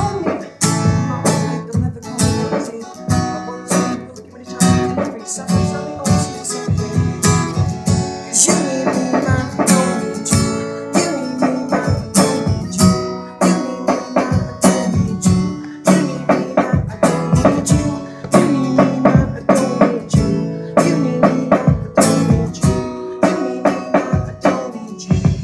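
Live acoustic guitar strummed rhythmically, with sharp percussive hits keeping a steady beat.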